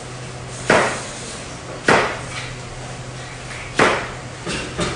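Hard knocks in the kitchen: three sharp strikes a second or two apart, then two lighter ones near the end, like a utensil or object banged down on a hard counter or board.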